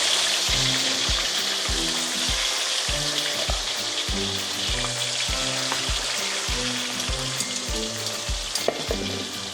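Chicken pieces coated in turmeric and salt frying in hot oil: a dense, steady sizzle that slowly gets quieter. Background music with a steady low beat plays underneath.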